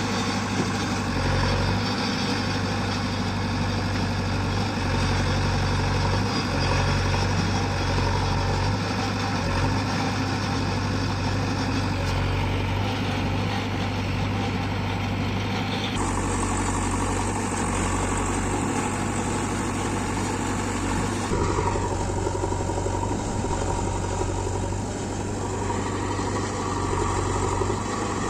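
Diesel engine of a JCB 3DX backhoe loader running steadily while the machine works, its sound changing abruptly about 16 and 21 seconds in.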